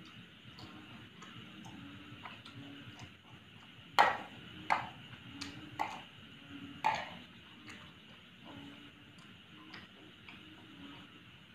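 A metal spoon clinking against a ceramic plate, about five sharp clinks in quick succession from about four to seven seconds in, the first the loudest. Faint steady ticking runs underneath.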